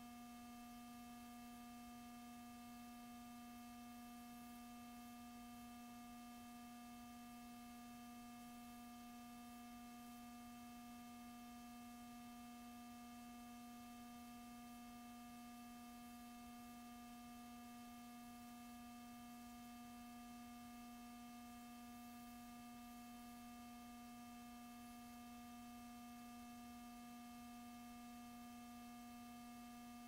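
Near silence: a faint, steady hum with a few higher overtones, unchanging throughout.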